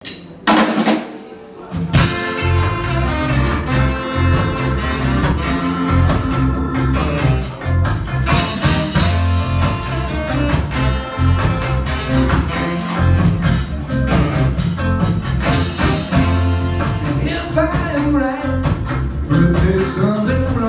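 Live band playing a blues-rock song, with drums keeping a steady beat under bass, electric guitar, keyboard and saxophones. The full band comes in about two seconds in, after a brief quieter start.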